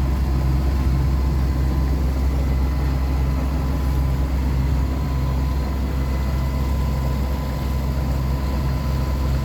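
Sailboat's engine running at a steady speed, a constant low drone that stays even throughout.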